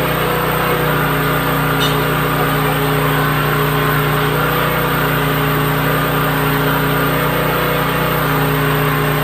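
Engine of a water-well drilling rig running steadily under load while boring through rock, with a constant drone and a faint metallic click about two seconds in.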